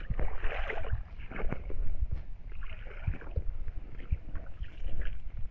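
Footsteps splashing and sloshing through deep rainwater puddles: an irregular run of wet thuds and splashes.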